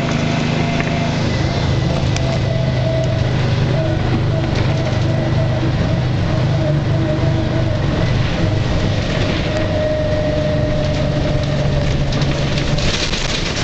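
1988-89 New Flyer D40HF diesel city bus, heard from inside the passenger cabin while under way: steady engine drone with a whine above it. The engine note drops about a second in.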